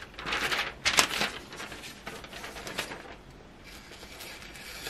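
Thin paper leaflet being sliced with a freshly sharpened hatchet blade as a sharpness test: several short papery cutting and rustling sounds with one sharp click about a second in, a few more near three seconds, then quieter.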